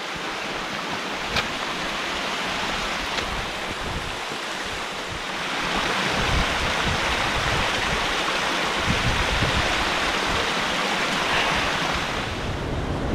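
Small mountain creek cascading over rocks: a steady rush of water that gets louder about five seconds in and eases off again near the end.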